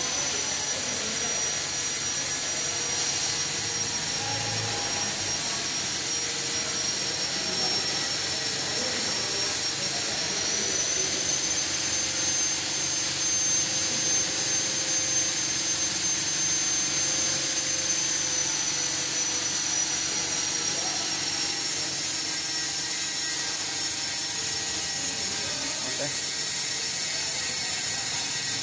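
Steady whirring hiss with a thin high whine from a switched-on fiber laser cutting machine that is not cutting. The whine shifts slightly higher about ten seconds in.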